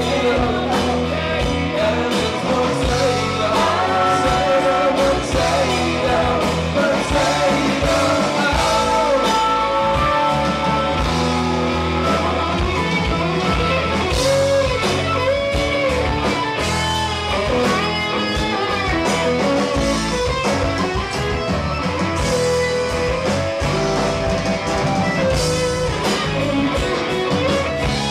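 Live rock band playing a song, with electric guitar and a sung vocal line over the full band.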